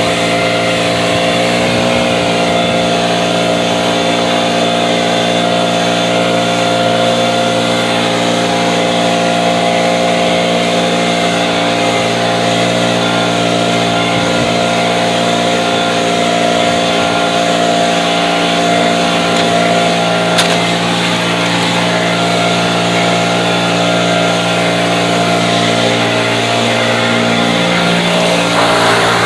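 Gas-powered leaf blower running steadily, used to blow snow, with slight shifts in pitch about two seconds in and again near the end.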